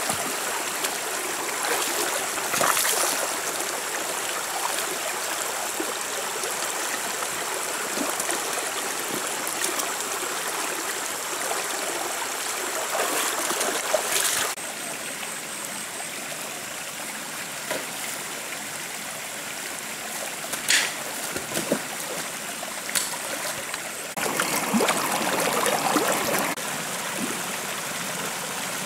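Shallow rocky stream running steadily over stones, with splashing from feet wading through the water. The splashing is louder a few times: about 3 s in, around 14 s, and again between about 24 and 26 s.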